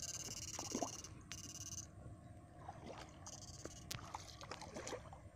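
High-pitched electrical whine of an electrofishing shocker that cuts off about a second in and comes back in short spurts, over soft sloshing and splashing of shallow water as the electrode pole and net are worked.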